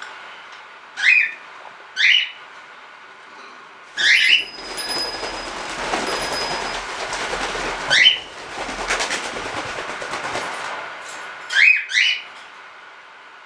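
Cockatiels giving short, rising contact calls, about six in all, with a long rush of flapping wings from about four seconds in until near the end.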